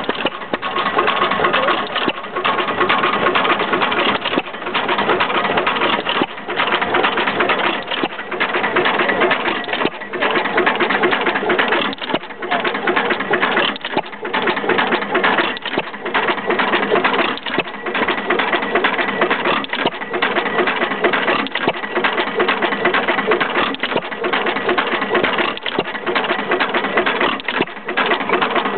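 Stover 2 hp hit-and-miss stationary engine with low-tension ignition running: a continuous fast mechanical clatter with brief lulls about every two seconds.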